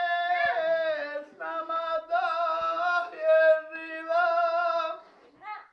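A man singing unaccompanied, with long held, wavering notes in a few phrases, breaking off about five seconds in.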